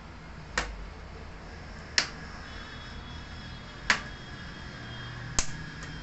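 Plastic retaining clips of an HP 240 G8 laptop's bottom cover snapping loose one after another as the cover is pried off: four sharp clicks about a second and a half apart.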